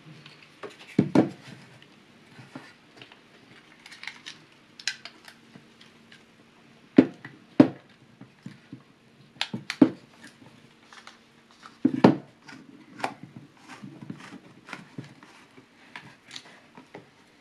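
Handling of a 3D-printed plastic 35mm film holder: irregular clicks, taps and knocks as it is moved about and a strip of film is fed through it, with a few louder knocks about a second in, around seven seconds in and about twelve seconds in.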